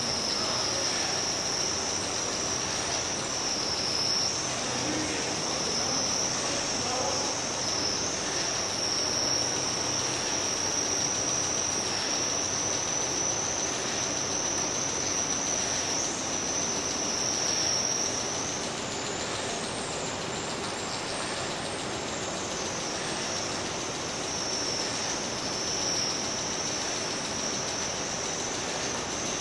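Sound installation of found objects driven by a loudspeaker and motors: a continuous high-pitched whine that wavers in pitch over a dense, scratchy rattling noise. About 18 s in the whine rises higher and the sound gets slightly quieter, and the whine drops back down a few seconds later.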